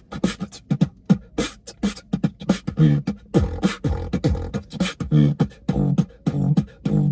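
Human beatboxer performing a hip-hop beat with the mouth: sharp snare and hi-hat clicks over low kick drums, with a couple of falling bass sweeps near the middle.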